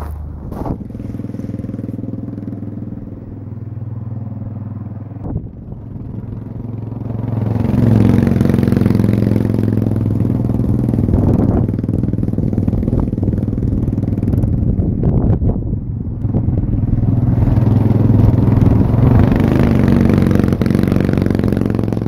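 Tillotson 212cc single-cylinder four-stroke go-kart engine running through a 3-foot straight-pipe header with no muffler as the kart is driven around. It runs more quietly at first, grows much louder from about eight seconds in as it revs up, dips briefly, then rises again before cutting back just at the end.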